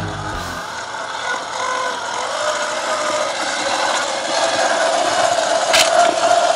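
Traxxas TRX-4 RC crawler's electric motor and gears whining steadily as it crawls over dirt and rock, growing louder toward the end, with one sharp click near the end.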